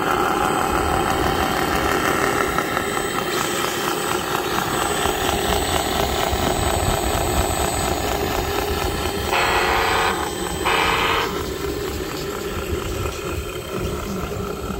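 Steady mechanical whine and hum from a 1:14 scale RC full-metal hydraulic wheel loader, broken by two short, louder buzzes of about a second and half a second, nine to eleven seconds in.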